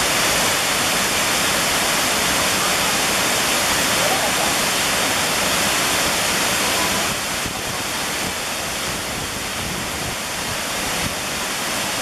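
A tall waterfall plunging down a rock face into a pool: a steady rush of falling water, a little quieter from about seven seconds in.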